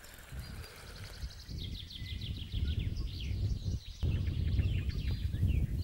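A songbird singing a rapid series of short, falling high notes, starting about one and a half seconds in. Beneath it a low rumble swells louder partway through.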